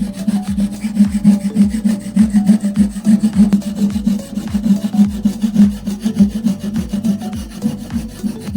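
Rhythmic rubbing and rasping strokes of abrasive work on a steel knife blade, repeating about two to three times a second.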